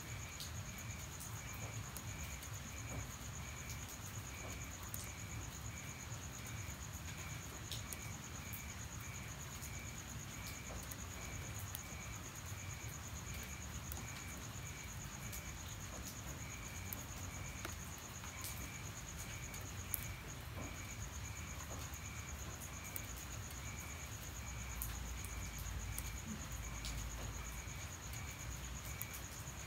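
Night insects calling: one steady high trill runs on unbroken while another chirps in a regular pulse. Scattered faint ticks fall in among them.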